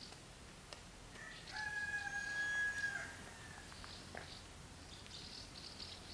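A single long animal call held at one steady pitch, lasting about two seconds from about a second in, over faint background hiss.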